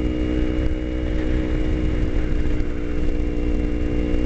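Kawasaki Ninja 250's parallel-twin engine running at a steady pitch while the bike cruises through a corner, over a heavy low rumble of wind noise.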